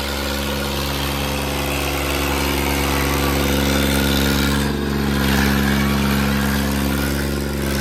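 Massey Ferguson 8055 tractor's diesel engine running at a steady speed, with an even, unchanging pitch.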